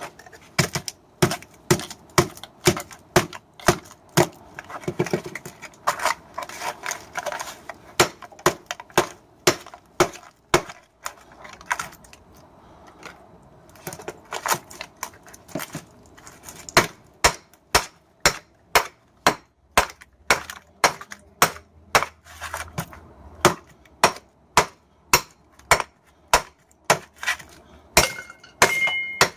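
Hammer blows on a microwave oven transformer, breaking it apart to get at its copper windings. The strikes come irregularly at first, pause briefly midway, then settle into a steady beat of about two a second, the last few ringing with a short metallic tone.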